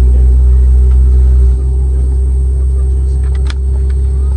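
Rolls-Royce BR715 turbofan engines of a Boeing 717, heard from a rear cabin seat right beside them: a loud, steady rumble with a steady high whine. The level drops slightly and suddenly about a second and a half in, and a few short clicks come near the end.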